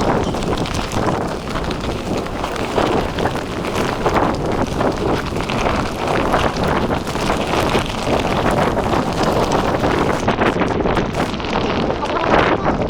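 Strong gusty wind buffeting the microphone, a loud continuous rumble and roar with irregular gusts, as a storm front blows in.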